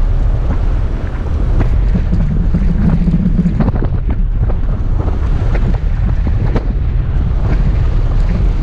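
Toyota FJ Cruiser's 4.0-litre V6 working through deep sand: a steady low rumble with frequent knocks and rattles, and wind buffeting the microphone.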